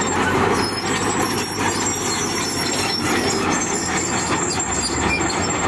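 Komatsu crawler bulldozer's steel tracks clanking and squealing steadily over its diesel engine as it tows a dump truck on a cable.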